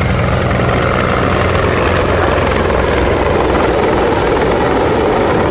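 Mil Mi-24/35 Hind attack helicopter in flight: its five-blade main rotor and twin turboshaft engines running loud and steady.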